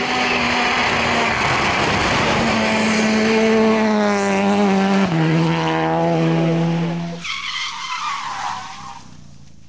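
Renault Clio rally car's engine at high revs as the car approaches and passes, with a gear change that drops the pitch about five seconds in. About seven seconds in the sound cuts to a fainter, hissing car noise that fades away.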